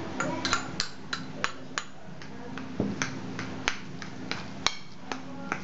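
Repeated sharp clinks and taps of kitchenware against a ceramic mixing bowl as minced garlic and ginger are added, about a dozen in irregular succession with a short pause midway.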